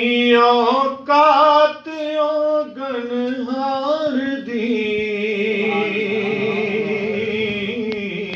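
A man's solo unaccompanied voice chanting a durood (salutation on the Prophet) in long melismatic phrases. It settles into one long held note with a steady vibrato that stops near the end.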